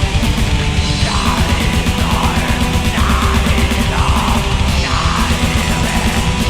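Orchestral-symphonic black metal: fast, dense drumming and distorted guitars under a heavy low end, with a harsh shouted vocal about once a second.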